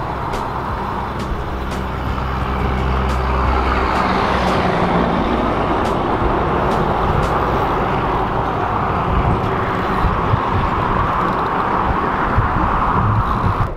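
Road traffic passing steadily, with the heavier engine rumble of a large vehicle going by in the first few seconds, then tyre noise carrying on. Faint ticks come through now and then.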